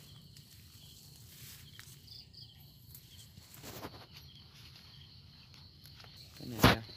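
Faint steady chirring of insects in the wet brush, with light rustling of leaves and branches being pushed aside. Near the end, a single loud sharp knock.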